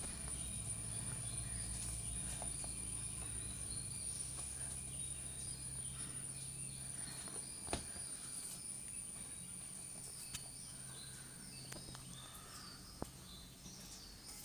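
Faint room tone: a steady high-pitched whine and a low hum, with a few soft clicks and faint short chirps. The hum fades about halfway through.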